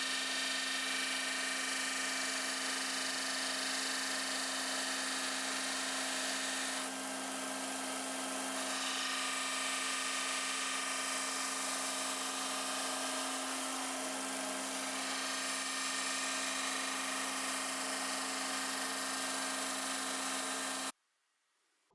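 Disc sander running steadily with a constant motor hum, sanding the edges of small wooden panels to 45-degree mitres; the sanding noise shifts slightly now and then. It cuts off suddenly about a second before the end.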